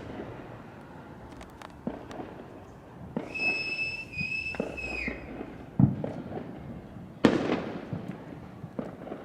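Fireworks and firecrackers going off: scattered small pops, a high steady whistle for about two seconds midway that dips at its end, then two loud bangs about a second and a half apart, the second trailing off in a long echo.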